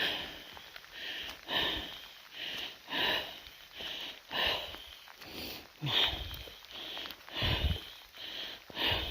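A person breathing hard and fast, short in-and-out breaths about two a second: winded from the uphill hike.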